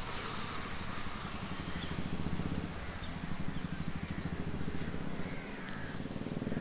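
Steady outdoor background noise, mostly a low hum of road traffic.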